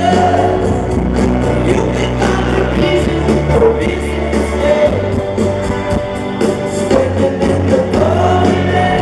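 Rock band playing live: a male voice singing over guitars, bass and drums.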